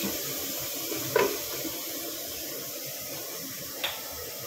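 Tamarind-water tempering simmering in a pan with a steady hiss, and a metal spoon clinks against the pan about a second in and again near the end.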